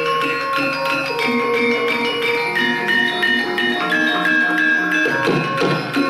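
Javanese gamelan ensemble playing: bronze metallophones and gongs struck in a steady, interlocking rhythm, each note ringing on, with a few drum strokes near the end.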